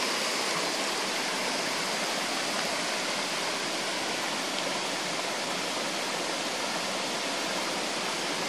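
A steady, even rushing hiss that holds at the same level throughout, with no separate knocks or tones.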